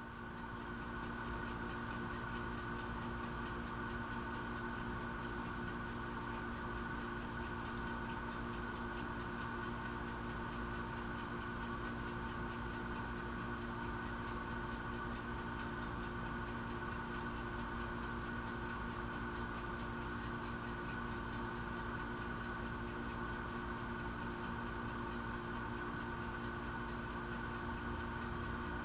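Steady electronic hum with several fixed tones, unchanging throughout.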